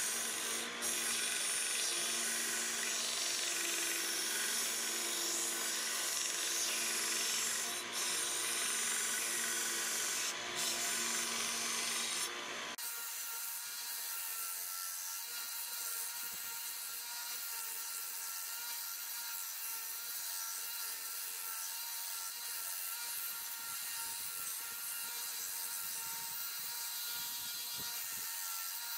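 Narrow-belt bench sander running with sheet-metal petal pieces pressed against the belt: a steady grinding hiss over a motor hum. About 13 seconds in, the sound changes abruptly, the low hum dropping out and the grinding becoming thinner and slightly quieter.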